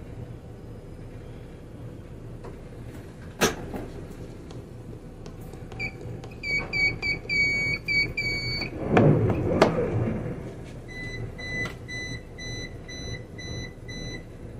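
Two runs of electronic beeps from the yacht's helm: a quick, higher series about six seconds in, then a fainter, lower series of short, evenly spaced beeps from about eleven seconds. Under them the boat's engines hum steadily at low speed, with a click about three seconds in and a few knocks around nine seconds.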